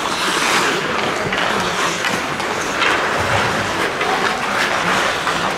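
Ice hockey play in a rink: a steady wash of skates scraping the ice, with scattered knocks of sticks and puck and faint voices.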